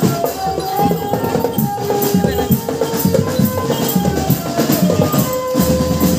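Drum band playing on the march: a melody of held notes that step from pitch to pitch over steady drums and rattling percussion.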